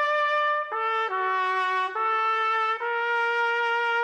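Background music: a trumpet playing a slow melody of long held notes. The pitch changes four times, and the last note holds through the final second.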